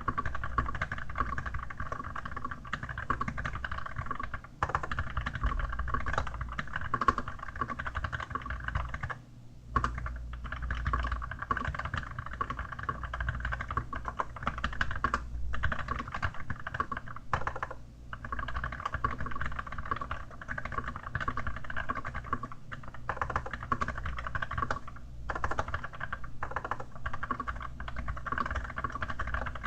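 Rapid, continuous typing on an Archon AK87 mechanical keyboard with Kailh Dark Gray switches, fitted with a keyboard skin, with short pauses about 9 seconds and 18 seconds in.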